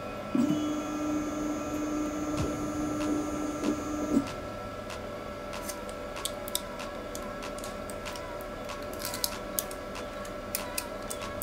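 Motorized force-test stand driving a scalpel blade down into raw beef: a steady motor whine for about the first four seconds, then a fainter steady hum with scattered small ticks as the blade presses through the muscle.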